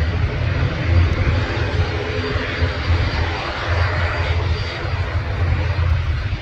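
An airliner's engines heard as a steady rush over a deep rumble as the plane passes, the rush swelling a little about four seconds in.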